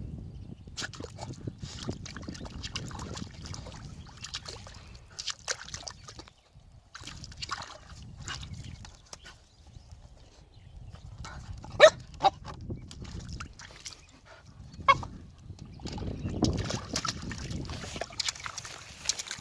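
Puppy splashing and sloshing in water as it paws and snaps at a floating ball, with a few short, sharp, higher sounds around the middle. The splashing grows louder near the end.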